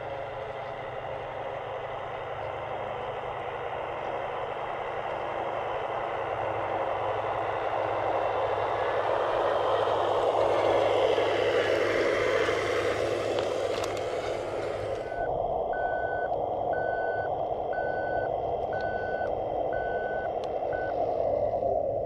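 Radio-controlled model truck driving up and past, its running noise growing louder as it nears. After about fifteen seconds it switches to the truck reversing, with an electronic reversing beeper sounding about once a second.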